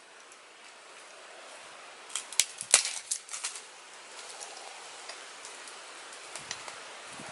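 A quick cluster of sharp wooden cracks and clicks about two to three seconds in, from dry sticks being handled and knocked against each other, over a faint steady hiss.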